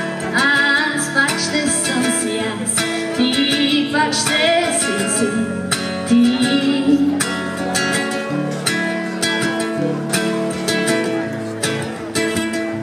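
Amplified acoustic guitar strummed steadily through an instrumental passage between verses of a song, with some wordless female singing in the first half.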